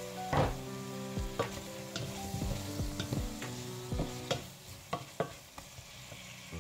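Wooden spoon stirring vegetables and shrimp sizzling in a hot pot, knocking against the metal sides about a dozen times at uneven intervals.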